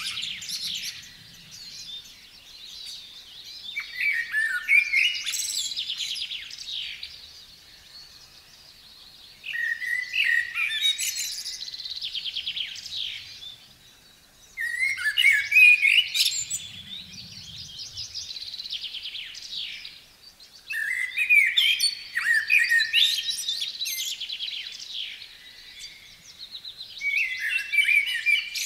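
A songbird singing, repeating a short phrase about every five to six seconds. Each phrase opens with lower notes and runs up into a fast trill.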